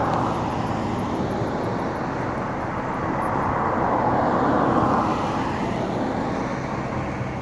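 Car tyres hissing on a wet road over steady traffic noise, swelling as a car passes about four to five seconds in and then fading.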